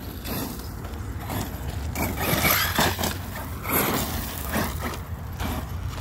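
1/8-scale Arrma Kraton 8S EXB RC truck driving on loose gravel. Its motor and tyres come and go in several short surges of noise as the throttle is worked.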